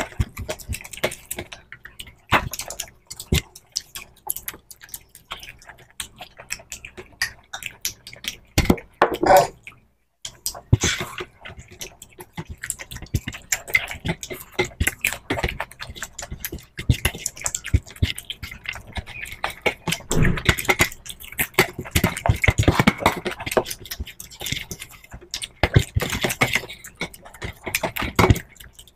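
People eating rice and fish curry with their hands, close to the microphone: a busy run of wet chewing and lip-smacking, mixed with fingers squishing rice and tapping on steel plates.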